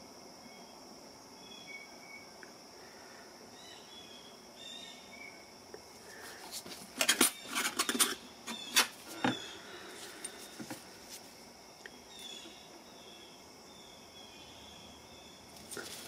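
Plastic oil bottle and its cap handled on a metal workbench: a cluster of sharp clicks and knocks about seven to nine seconds in, and a few lighter clicks shortly after. Behind them a faint steady high tone with short chirps.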